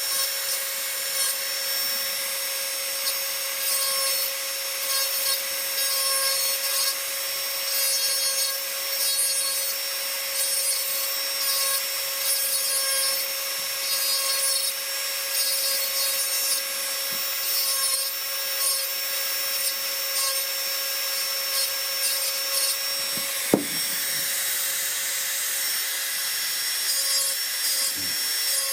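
Dremel 4000 rotary tool running at a steady whine with a small carbide inverted-cone burr cutting fine hair texture into wood, the grinding rising and falling with each short stroke. One sharp click about three-quarters of the way through.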